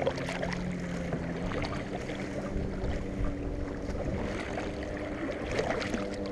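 Jet ski engine droning steadily, its pitch stepping up and down a couple of times as the throttle changes, under the dip and splash of a kayak paddle's strokes and low wind rumble on the microphone.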